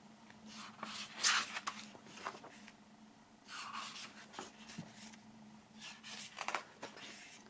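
Pages of a large photo book being turned by hand: a few soft paper swishes and rustles, spaced a couple of seconds apart.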